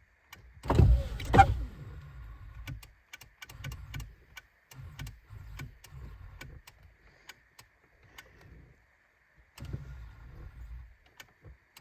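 Power door motor of a 2000 Ford Explorer, run in short repeated bursts with clicks as a door switch is pressed again and again, after two loud thumps about a second in. The part sticks or fails to respond, so the switch has to be pressed repeatedly.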